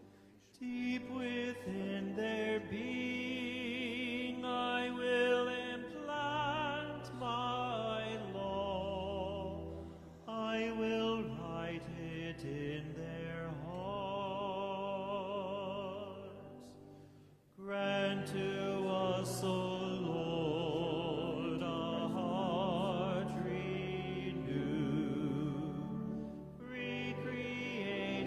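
A hymn sung by a singer with a wide vibrato over sustained organ chords. The music stops briefly about two-thirds of the way through and then starts again with a new line.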